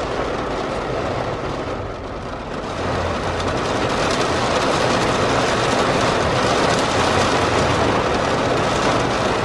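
Heavy rain falling on a car's roof and windows, heard from inside the car as a steady hiss that gets louder about three seconds in.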